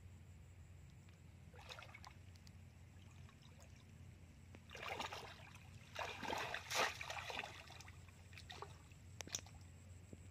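Shallow muddy water splashing and sloshing in irregular bursts as a person wades through it and plunges a woven bamboo plunge basket into it. The loudest splashing comes a little past the middle, over a low steady background hum.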